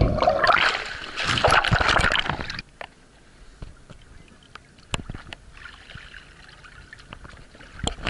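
Water churning and bubbling loudly around a submerged camera. About two and a half seconds in it cuts down to quiet water lapping with a few scattered clicks and drips, as the camera is out of the water.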